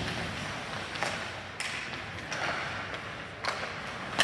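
Ice hockey in play: skates scraping the ice, with several sharp clacks of sticks and puck spaced out over a few seconds, the loudest near the end.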